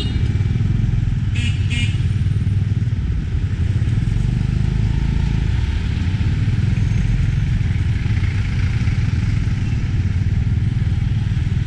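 Tuk-tuk engine running steadily with road rumble, heard from the passenger seat while riding. Two short high beeps come about a second and a half in.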